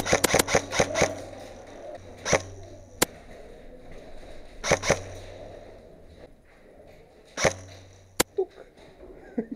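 Airsoft electric guns firing. A rapid string of shots, about eight a second, runs until about a second in. After that come short bursts and single shots every second or two.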